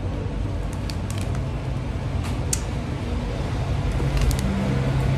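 Plastic snack bag crinkling in the hand as it is held up and moved, a few short crackles over a steady low hum.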